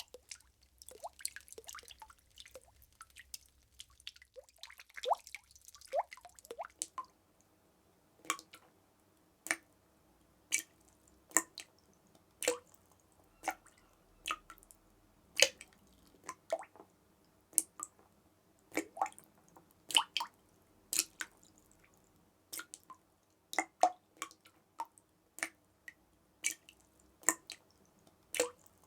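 Water drops dripping, each a short sharp plink. A quick, irregular patter of small drips opens the sound, and after about seven seconds it settles into single drops roughly once a second.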